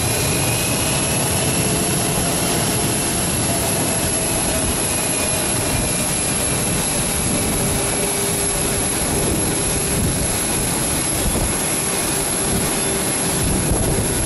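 Twin jet engines of a Solomon Airlines Airbus A320 running at taxi power as the airliner taxis and turns. A steady jet noise with a faint high whine over it.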